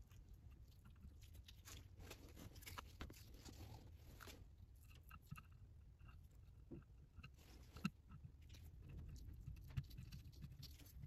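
Near silence with faint clicks and scraping of metal parts as the pressure regulator valve and spring are pushed by hand into their bore in a 4L80E transmission pump body, with two slightly sharper clicks in the second half.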